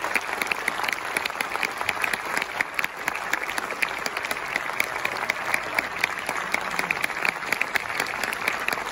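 Audience applauding: many hands clapping in a dense, steady clatter.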